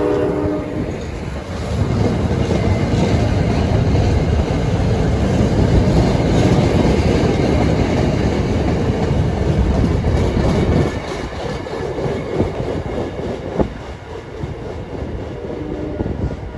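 MBTA commuter train rolling past on the rails, with a horn chord cutting off under a second in; the rolling noise is loud and steady, then drops away about eleven seconds in.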